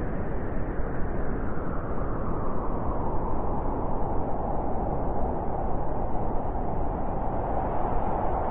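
Winter wind blowing steadily: an even, low rushing noise.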